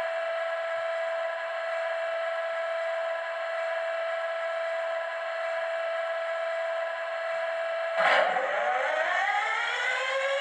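Engine sound of a model Class 60 diesel locomotive: a steady pitched drone. About eight seconds in it jumps, the pitch drops and then climbs back up, like the engine revving up.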